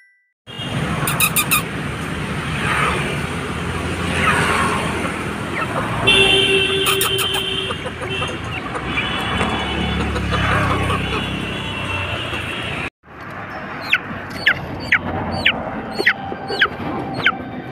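Roadside traffic noise with vehicle horns tooting, the longest toot about six seconds in. After a sudden break, a run of about ten short, sharp, descending chirps, roughly two a second.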